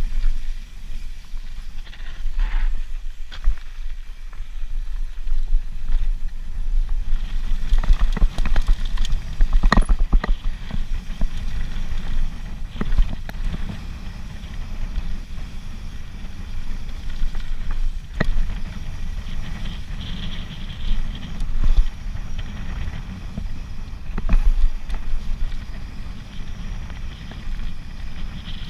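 Mountain bike descending a dirt and gravel trail: wind buffeting the handlebar-mounted camera's microphone as a heavy, steady rumble, with tyres running over the dirt and scattered sharp rattles and knocks from the bike over bumps.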